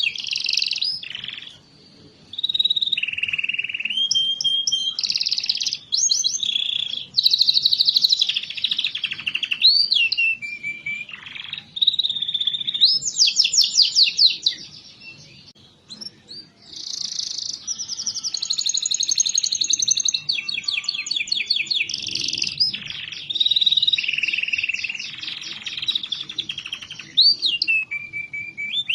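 Domestic canary singing a long, varied song of rapid trills and repeated-note rolls in phrases, with brief pauses about two seconds in and halfway through: the kind of lively 'gacor' song played as a lure to set silent canaries singing.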